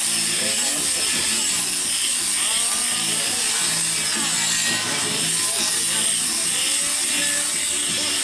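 Handheld electric power tool with a wire-brush attachment scouring a large metal frying pan: a steady, continuous motor whine mixed with the scraping of the brush on the metal.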